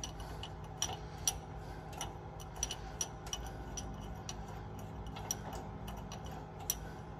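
Hand ratchet clicking in irregular single clicks, a few a second, as it turns a bolt on a driveshaft U-joint cap, over a low steady hum.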